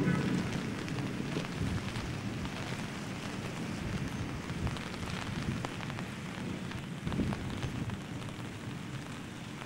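Torrential rain pouring down steadily: a dense, even rush with many small drop hits scattered through it.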